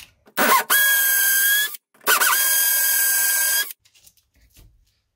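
Power drill drilling holes for wall plugs in brick: two runs of about a second and a half each, the motor spinning up quickly to a steady high whine each time.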